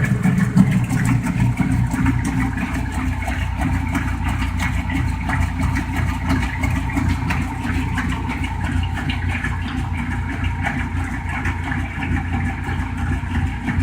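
Whirlpool Direct Drive top-loading washing machine agitating during its wash cycle: a steady mechanical churning with the motor running and the load of water being swished back and forth.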